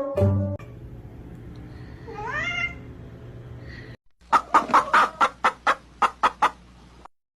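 Animal calls: one short call rising in pitch, then from about four seconds in a quick run of about a dozen short, sharp calls, roughly four a second, over a low steady hum.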